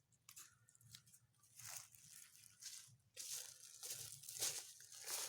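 Dry fallen leaves crunching and rustling as they are gathered and heaped by hand into a bed, in irregular bursts that grow louder and busier about three seconds in.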